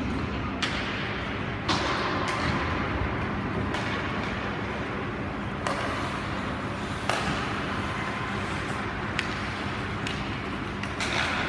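Ice hockey play: sharp clacks of sticks and puck every second or two, with the hiss of skates on the ice between them over a steady rink hum.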